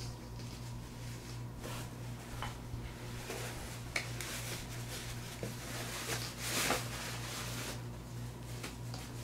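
Rustling and light clicks of a plastic water-filter pump and its hose being handled and stuffed into a nylon drawstring pouch, loudest about six and a half seconds in, over a steady low hum.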